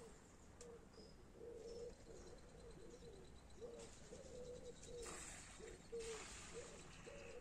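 Faint cooing of a dove or pigeon, a long run of short, soft, low notes repeated in a steady rhythm, with a brief soft hiss about five seconds in.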